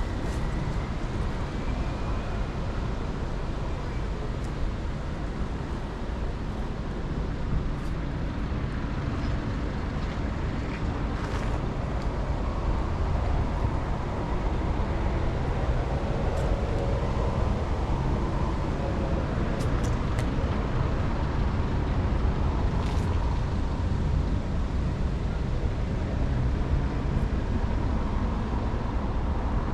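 City street ambience: a steady rumble of passing road traffic, with snatches of passers-by talking.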